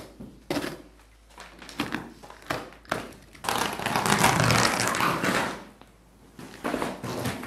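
Wall-to-wall carpet being cut with a utility knife and pulled up: a few short scraping strokes, then a loud, even scraping noise of about two seconds in the middle, and more short strokes near the end.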